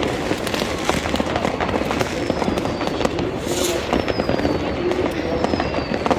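New Year's Eve fireworks and firecrackers: a dense, continuous crackle of pops and bangs, with a thin falling whistle in the second half.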